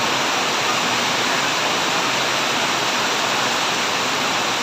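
Heavy storm rain pouring down, a loud, steady rush of water.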